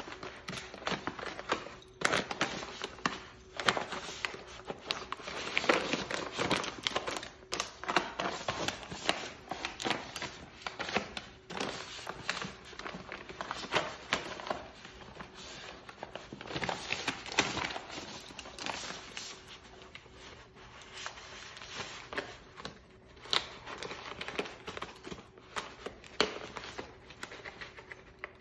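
Brown paper gift bag crinkling, rustling and tearing in irregular bursts as a small Morkie dog bites and tugs at it.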